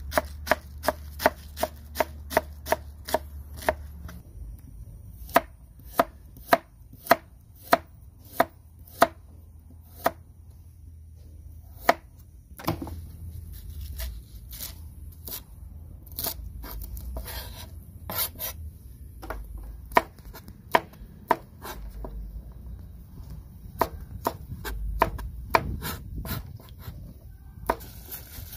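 Cleaver chopping cabbage and then bok choy on a plastic cutting board, sharp knocks of the blade on the board. The strokes come quick and regular at about three a second at first, then slower and more uneven.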